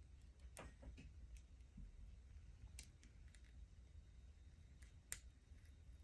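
Near silence: faint room tone with a few soft, short clicks, the clearest a little after five seconds.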